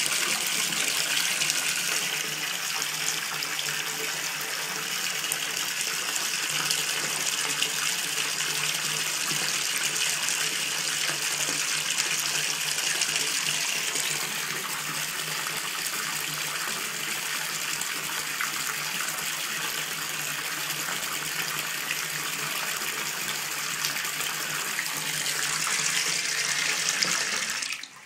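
Water running hard from a tap into a bathtub, a steady splashing rush that cuts off suddenly near the end.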